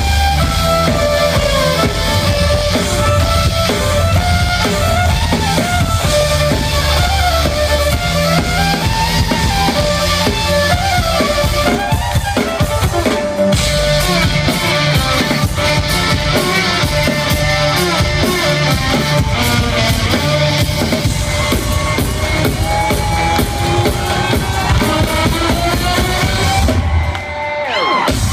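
Loud live concert music through a big PA, recorded from the crowd: an amplified violin melody over a heavy electronic drum beat and bass. Near the end the beat drops out briefly under a rising sweep, then comes back.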